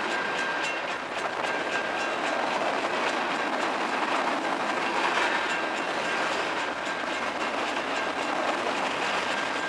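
Freight cars of a CSX mixed freight train rolling past close by: a steady rush of steel wheels on rail with rapid clicking over the rail joints, and a thin steady high tone running through it.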